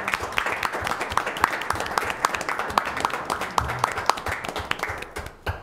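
Applause: many people clapping steadily, then dying away near the end.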